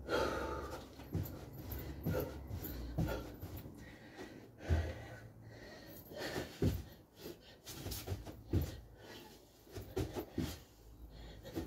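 A man panting and gasping hard from the exertion of a long burpee set, with irregular dull thumps as his feet and hands land on the floor mat.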